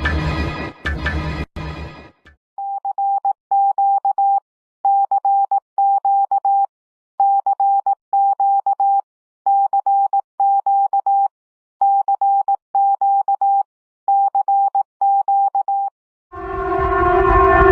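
Emergency alert tone: a single mid-pitched beep in pairs of short, rapidly pulsed bursts, repeating six times. It follows the end of a harsh, loud pulsing alarm in the first two seconds. Near the end a loud siren-like alarm of several tones swells in.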